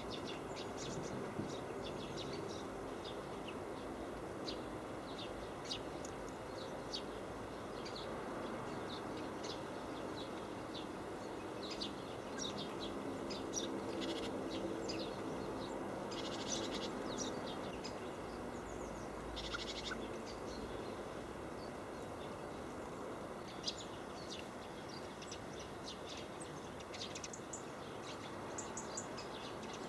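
Great tits and blue tits giving short, high, thin calls, scattered and overlapping throughout, with busier clusters around the middle. A steady low rumble of background noise runs underneath.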